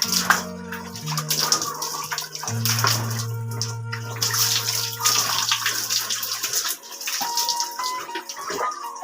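Water poured and splashing over and over as a person bathes, in separate surges of rushing water. Background music with steady held notes plays underneath.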